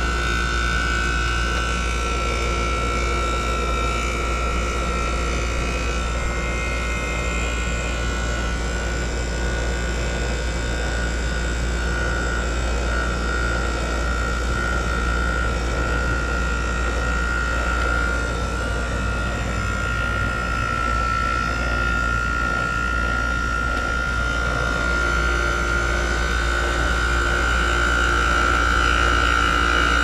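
2014 American Standard 13 SEER 2.5-ton heat pump outdoor unit running through its defrost cycle: a steady low hum with a constant high whine over it, a little louder near the end.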